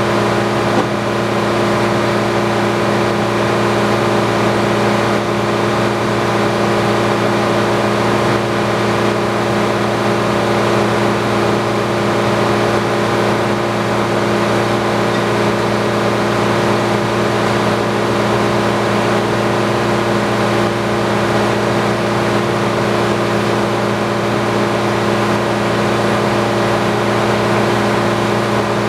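The engine powering an antique sawmill, running steadily at a constant speed with an even drone.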